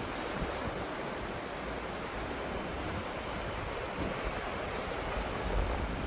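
Sea surf washing on a beach, with wind rumbling on the microphone.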